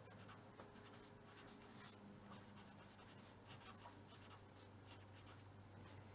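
Very faint scratching of a red felt-tip pen writing a word on paper, in short irregular strokes.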